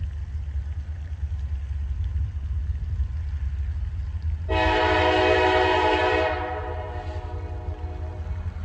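Freight locomotive air horn sounding one long blast about four and a half seconds in, held for nearly two seconds and then trailing off, as a crossing warning. A steady low rumble runs underneath.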